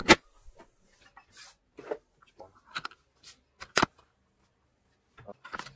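Handling noises: scattered rustles and short clicks, with a sharp double click at the start and another sharp click a little under four seconds in.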